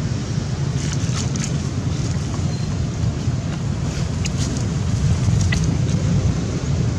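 Steady low rumble of wind buffeting the microphone outdoors, with a few faint short high ticks about a second in and again around four and five seconds in.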